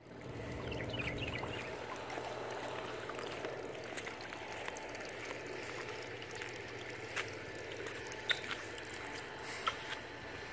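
Steady rush and trickle of water in a swimming pool, with a few sharp clicks in the second half.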